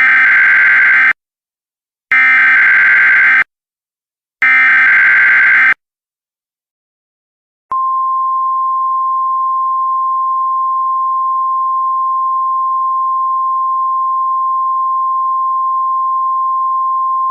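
Emergency Alert System test signal: three buzzy bursts of digital header data, each just over a second long and about two seconds apart. After a short gap a loud, steady single-pitch alert tone starts about eight seconds in.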